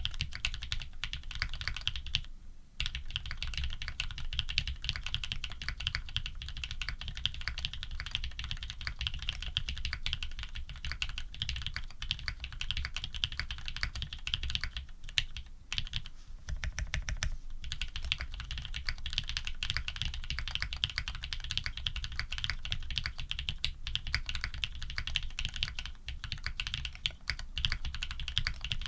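Fast continuous typing on a custom Think 6.5 v2 mechanical keyboard with lubed Cherry black-housing switches fitted with cream stems, PBT keycaps and an FR4 plate: a dense patter of key strokes with brief pauses about two and a half seconds in and again near the middle.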